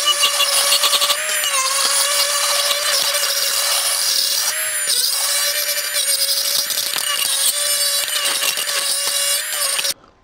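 Cordless die grinder running a burr through an oil passage in a 1G-FE engine's oil pump housing, enlarging the passage for better oiling. A steady high motor whine with grinding noise that dips briefly as the burr bites, then cuts off near the end.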